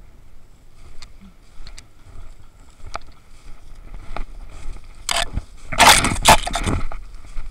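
Footsteps crunching and rustling through dry fallen leaves and undergrowth, with a few light snaps early on and a loud run of crunching strides from about five seconds in.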